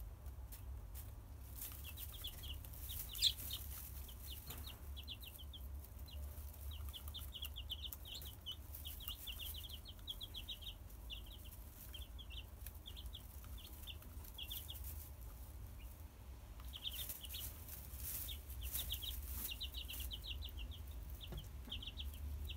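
Three-day-old chicken chicks peeping in quick runs of short, high chirps, over a steady low hum. A sharp click about three seconds in.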